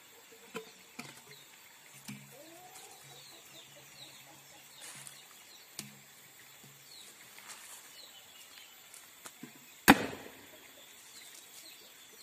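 A lodong, a homemade spirit-fuelled cannon, fires once about ten seconds in: a single sharp, thundering boom that dies away quickly.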